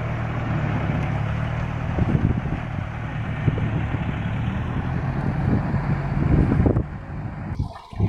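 Engines of a four-engine farm hauler running steadily under load, with wind on the microphone. The sound falls away briefly near the end.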